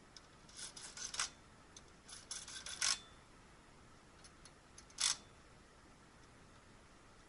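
Light clicking and scraping of small hard objects being handled: two quick runs of clicks about a second long, then one sharper scrape about five seconds in.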